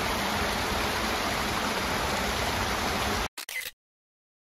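Mountain stream running over mossy rocks: a steady rush of water that cuts off abruptly about three seconds in.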